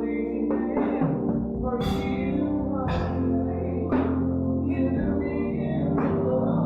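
Live gospel band music: held keyboard chords over a bass line, with a percussion hit about once a second.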